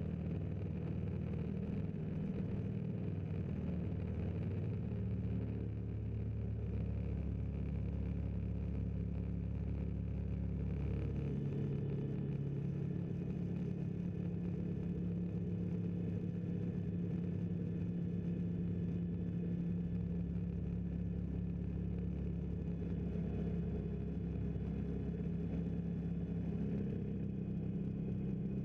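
Fly Synthesis Storch S ultralight's engine and propeller droning steadily in flight, heard from inside the cockpit. The engine note shifts slightly about twelve seconds in.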